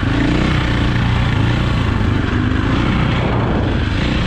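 A 2004 KTM 450 EXC's four-stroke single-cylinder engine running steadily under throttle as the dirt bike is ridden on a motocross track.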